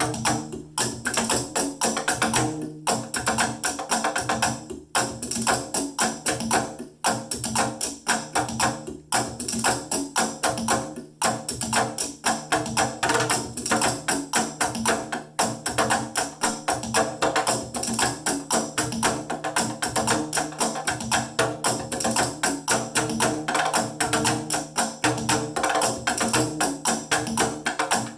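Found-object drumming: sticks beating everyday household items in a steady, fast groove of many strokes a second, with a steady low tone underneath.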